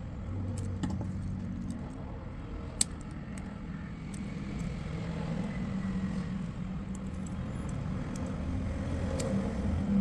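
Small metal clicks and jingles of necklace pieces and a wire eye pin being worked with a hand tool, a few sharp isolated clicks, over a steady low background rumble.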